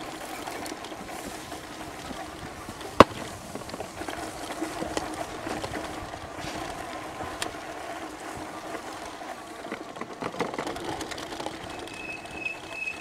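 Electric bike riding over rough, bumpy ground: the steady whine of its electric motor under the rattle and rumble of the tyres and frame. A single sharp snap about three seconds in is the loudest sound.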